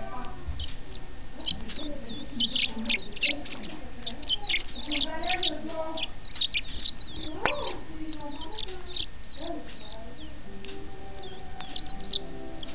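Young European goldfinch giving rapid, continuous high chirps, each a short downward sweep, several a second: the begging calls of a chick being fed.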